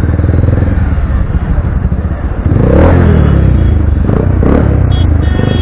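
Single-cylinder motorcycle engine, a Pulsar 180 bored up to 220 cc, running through an SC Project aftermarket exhaust with a loud, lumpy, pulsing note at low speed. About two and a half seconds in it gets louder as the throttle is opened and the revs rise, then the revs rise again briefly.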